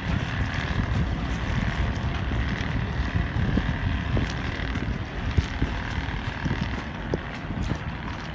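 Wind buffeting the microphone outdoors by the water: an uneven low rumble with irregular soft thumps.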